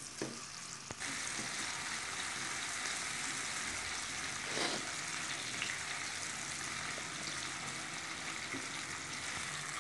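Onions frying in hot oil in a wok: a steady sizzle that gets louder about a second in.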